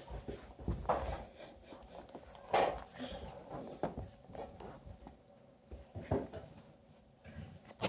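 Eight-week-old bluetick coonhound puppies moving about on a quilt over a hard floor: scattered soft rustles, scuffs and light knocks at irregular intervals, the loudest a little over two and a half seconds in.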